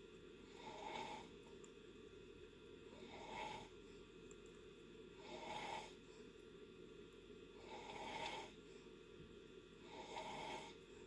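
Faint snoring in deep sleep: five snores, one about every two and a half seconds.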